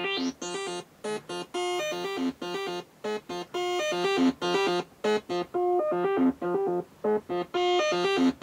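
Maplin 5600S analogue synthesiser playing a quick repeating run of short pitched notes through its second filter. The brightness of the tone rises and falls as the filter knobs are turned.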